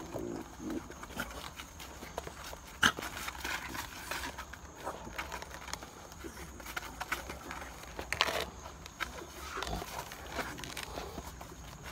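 Worn rubber soles of leather boat shoes scraping and scuffing against a rough concrete step, with irregular knocks as the shoes strike the edge. There is a sharp knock about three seconds in and a burst of hard scraping around eight seconds.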